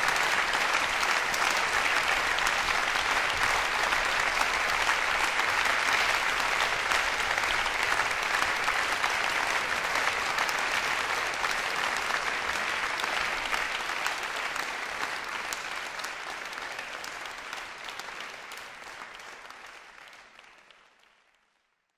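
Audience applauding steadily after a live performance, dying away over the last few seconds.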